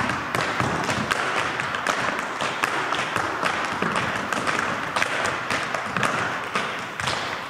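Dancers' sneakers striking a wooden floor in quick, irregular footwork: many sharp taps and stamps.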